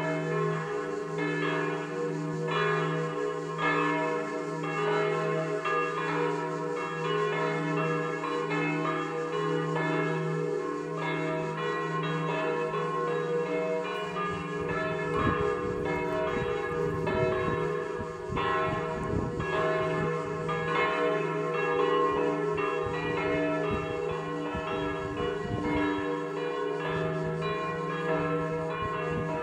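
Three church bells tuned to a chord on E3 ringing a festive peal, their strikes overlapping continuously, with the deep hum of the largest bell pulsing under the higher bells.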